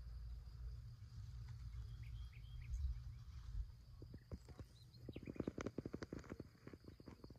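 Outdoor ambience: birds chirping over a low wind rumble, with a steady high insect drone. A quick run of clicks comes in over the last couple of seconds.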